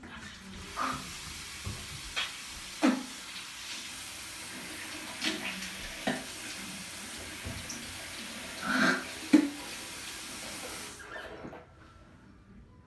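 Bathroom sink tap running steadily into the basin, with a few light knocks over it. The water is shut off about eleven seconds in.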